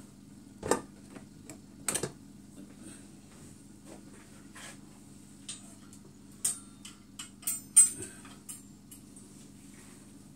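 Metal kitchen utensils clinking and clattering in a string of irregular sharp clacks as a serving spoon is picked out, the loudest near the end, over a steady low hum.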